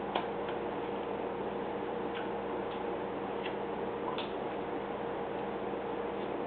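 Carving knife paring small chips off a wooden dog blank by hand: faint, irregular clicks as the blade cuts through the wood, about half a dozen, over a steady low hiss and hum.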